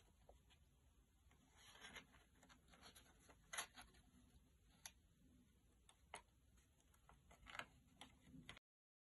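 Faint rustling and crinkling of a paper cube template being folded and pressed together by hand, with a few soft ticks and taps. The sound cuts to dead silence near the end.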